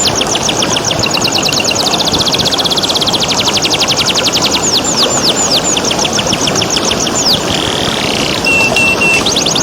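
Domestic canary singing: fast trills of repeated downward-sweeping notes and some slower, longer downslurred notes, with a short held whistle near the end, over the steady rushing of flowing water.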